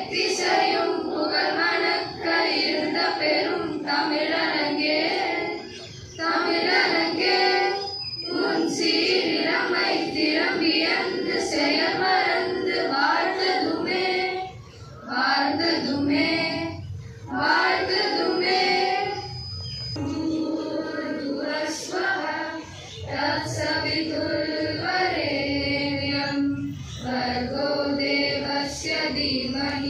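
A group of schoolgirls singing together in Tamil, in unison through microphones, in long held phrases with short breaks for breath.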